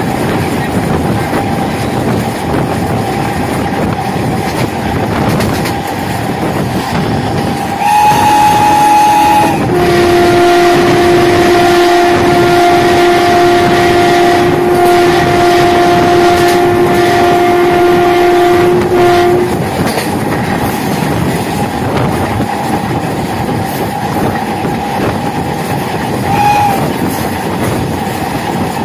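Electric MEMU train running at speed, heard from its open doorway: steady wheel-on-rail noise with a faint steady whine. About eight seconds in, the horn sounds a short blast, followed straight away by a long blast of about ten seconds at a lower pitch.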